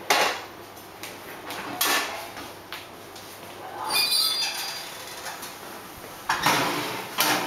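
Kitchen oven being opened and a roasting dish of pork drawn out on the wire oven rack: a knock at the start and another about two seconds in, a ringing metal clink about four seconds in, then a longer scrape near the end.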